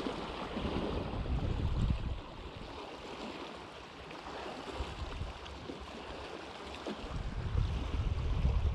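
Water lapping against a small inflatable boat, with wind buffeting the microphone in low rumbling gusts about a second in and again near the end.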